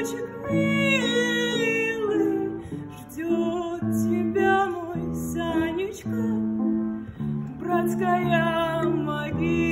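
Music: a woman singing a slow song over a plucked-string accompaniment, with guitar chords.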